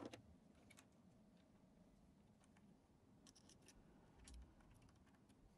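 Near silence: faint room tone with a few faint small clicks and taps of metal hardware being fitted by hand onto an aluminium gantry plate, a short cluster of clicks about three seconds in and a soft knock just after four seconds.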